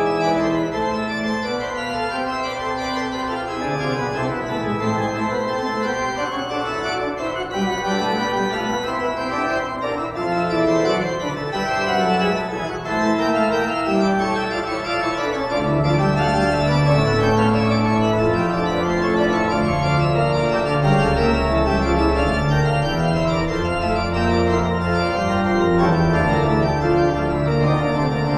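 Instrumental music: held, sustained chords, with a deeper bass line joining about halfway through.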